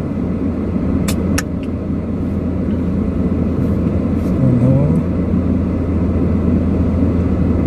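Steady low rumble of a car being driven in slow traffic, heard from inside the cabin, with two sharp clicks about a second in.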